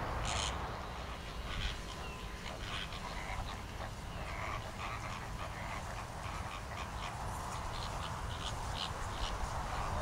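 Waterbirds calling: many short calls scattered throughout, over a steady low rumble.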